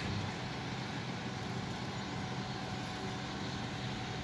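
Steady low machinery hum of a river cruise ship, heard from its deck, over a constant hiss.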